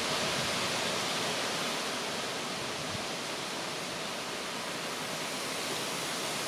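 Wind blowing steadily through trees and foliage: an even rushing hiss.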